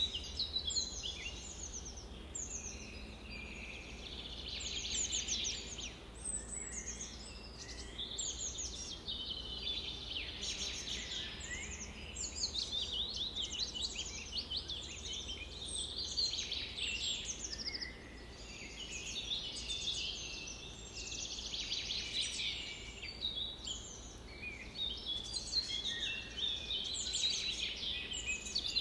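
Many small birds chirping and twittering at once: overlapping high chirps and quick trills with no real pause, over a steady low hum.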